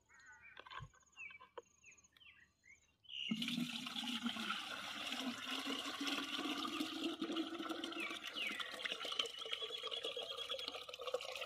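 Water poured from a plastic bucket into a plastic watering can, a steady splashing pour that starts suddenly about three seconds in and keeps going.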